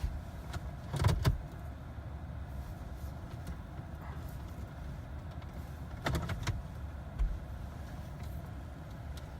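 Short clicks and clunks from the Jeep's interior controls being worked by hand, in two groups about a second in and about six seconds in, over a steady low hum in the cabin. The engine is not turning over: the Jeep refuses a hot start while the transmission control module still reads the shifter as in gear.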